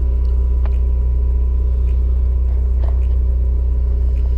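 Generator running steadily with a deep, even hum, a little light clicking from nearby handling over it.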